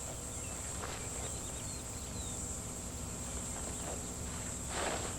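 Insects droning steadily at a high pitch, with a few faint chirps and a soft brief rustle near the end.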